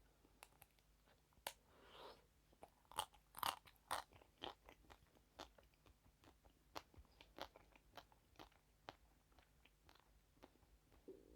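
A person chewing crunchy food, with a run of loud, sharp crunches about three to four seconds in, then softer crunching chews at a steady pace.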